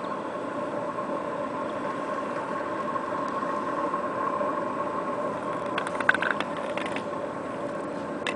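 Steady engine-like hum with two constant tones, like a motor idling. A brief cluster of sharp clicks and clatter comes about six seconds in.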